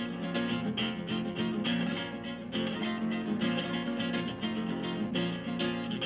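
Acoustic guitar strummed in a quick, steady rhythm.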